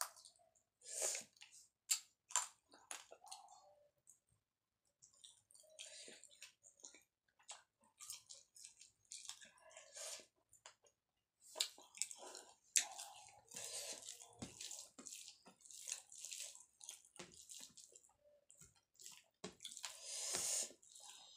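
A person eating by hand: irregular chewing and mouth clicks, with wet squelching as rice and lentil dal are mixed with the fingers, the longest squelch near the end.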